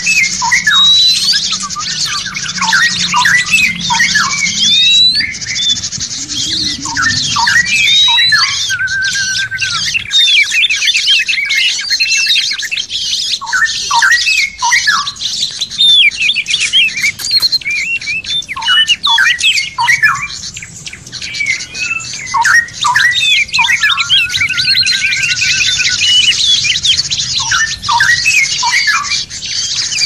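Compilation of songbird calls, several birds layered together: many short sliding whistled notes over a dense, continuous high chirring.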